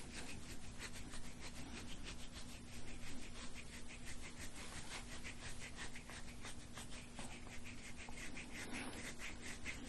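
Soft-tissue scraping tool drawn in quick, repeated strokes over a patient's skin, about three strokes a second, in instrument-assisted soft-tissue work.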